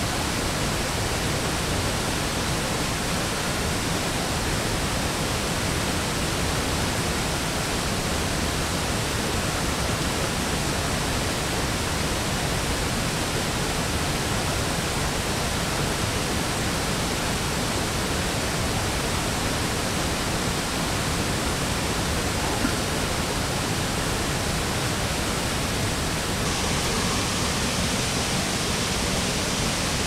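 Steady rushing of a small waterfall on a mountain stream.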